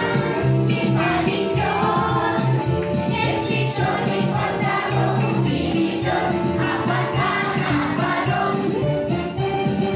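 A lively song with group singing over a steady beat, with children's toy percussion such as shakers and tambourines rattling along as a kindergarten noise orchestra.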